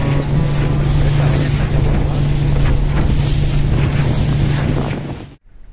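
Outboard motor of an inflatable boat running steadily under way, with wind buffeting the microphone and water slapping against the hull. The sound cuts off abruptly near the end.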